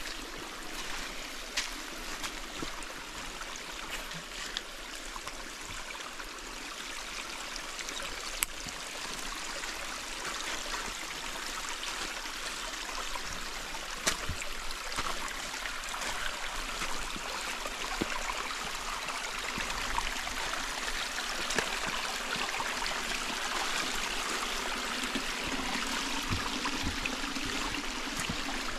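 Mountain stream running over rocks, a steady rushing that grows gradually louder, with a few sharp clicks scattered through it.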